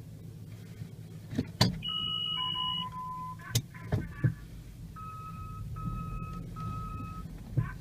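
Steady low drone of a vehicle driving on a snowy road, heard from inside the cabin, with several sharp knocks. From about two seconds in there is a simple tune of electronic beep tones, stepping between a few pitches.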